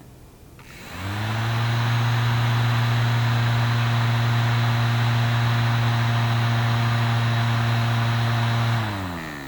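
A motor hum that spins up about a second in, runs at a steady low pitch with a rushing, airy noise over it, then winds down near the end.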